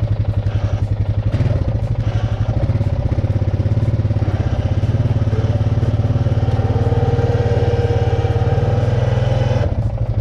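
Four-wheeler's engine running under load while backing up in reverse, its note rising about a second and a half in and falling back near the end. A steady whine joins in over the second half.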